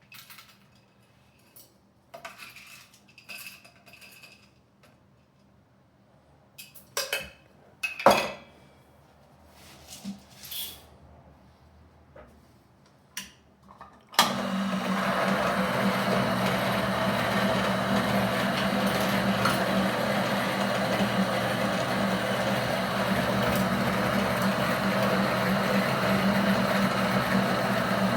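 Light clinks and knocks of espresso gear being handled, then about halfway through a coffee grinder's motor switches on abruptly and runs steadily, grinding beans with a loud, even hum.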